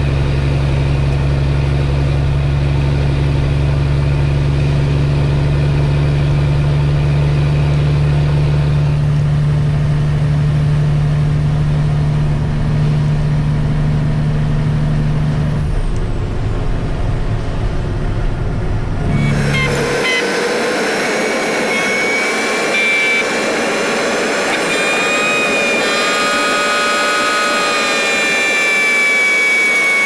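Mack truck's diesel engine running at a steady speed. About nineteen seconds in, the sound changes abruptly to a thinner, high-pitched whine with several tones, with the low rumble gone.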